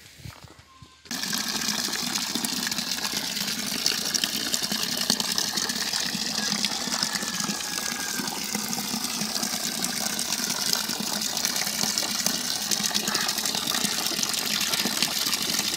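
Water gushing from a pipe into a water tub as it fills, a steady splashing rush that starts abruptly about a second in.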